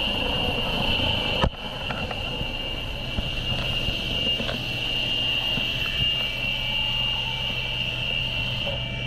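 Helicopter cabin noise heard from inside with the door open: a steady high turbine whine over the rotor's low hum and rushing wind. One sharp knock comes about a second and a half in.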